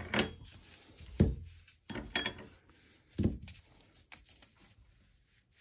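Large steel flat washers, used as pattern weights, being set down one by one on a paper pattern over fabric on a tabletop: about five dull thunks over three seconds, some with a short metallic ring.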